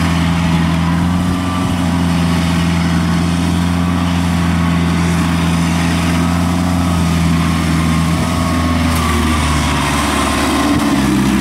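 Engine of a tracked rice-transport crawler, loaded with sacks of harvested rice, running steadily as it drives across a paddy field. Its pitch changes near the end.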